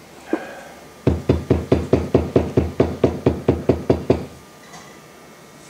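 A single knock, then a quick, even run of about sixteen light ball-peen hammer taps, roughly five a second, lasting about three seconds. The taps are seating a rope crankshaft seal into a Ford Model T engine's front plate.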